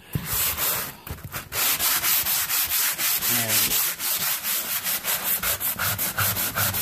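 Hand sanding block, 80 grit, rubbed over a painted wall in quick back-and-forth strokes, several a second, knocking down old paint drips and sags. There is a short burst at the start, a brief pause, then steady rhythmic strokes.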